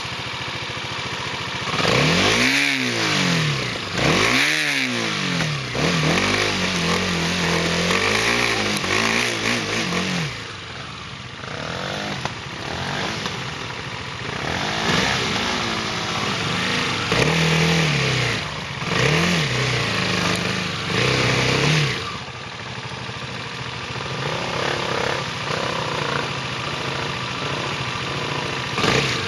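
A vehicle engine revving hard again and again, its pitch rising and falling in quick surges, then running on at uneven revs as it labours through mud and water.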